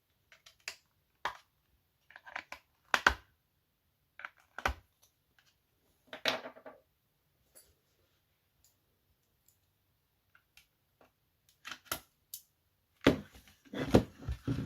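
Plastic wireless-charger housing being handled and taken apart: scattered clicks, knocks and short scrapes, with a louder flurry of knocks and clatter near the end.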